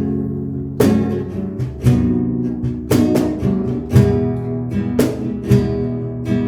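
Acoustic guitar strumming chords, about one strong strum a second, playing the introduction to a worship song before the singing comes in.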